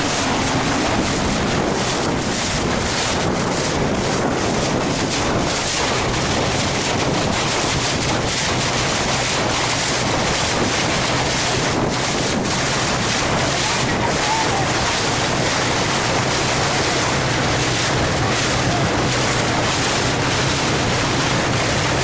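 Steady wind buffeting the microphone over sea water rushing and splashing past a boat under way.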